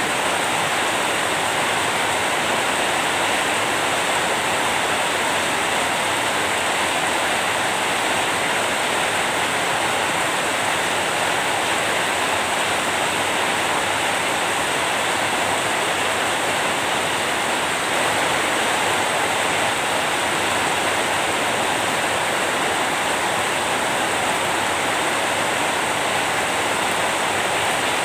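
Steady rain falling: an even, unbroken hiss that does not change.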